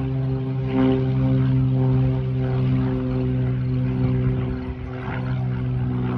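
Propeller airplane engine with a steady, even drone.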